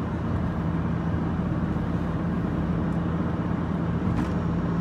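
Steady road and engine noise of a car cruising at highway speed, heard from inside the cabin, with a constant low hum underneath.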